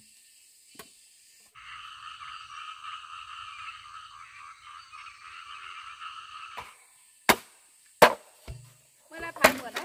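Construction work: a steady noise for about five seconds, then several loud, sharp knocks about a second apart, like blows on wood.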